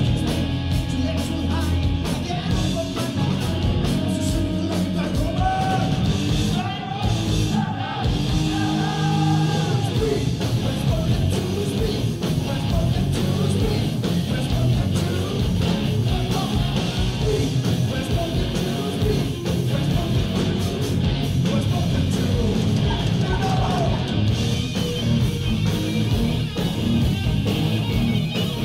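Live heavy rock band playing at full volume: distorted electric guitars, bass and drums, with a singer's voice over the top for part of the time, recorded from the audience.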